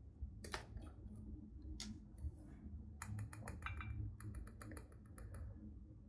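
A small plastic glitter tube handled and opened with a few separate clicks, then shaken and tapped over a glass dish so chunky glitter ticks out into it in a quick, even run of about seven ticks a second for two and a half seconds.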